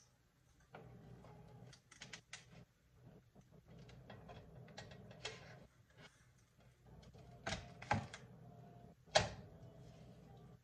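Plastic wrap and a foam meat tray crinkling and clicking as ground beef is unwrapped and pushed out into a cooking pot, with a few louder crackles and knocks about three quarters of the way through.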